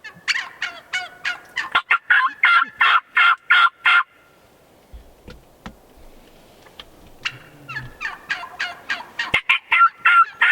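Merriam's wild turkeys calling in long, rapid runs of short notes. There is a break of about three seconds partway through.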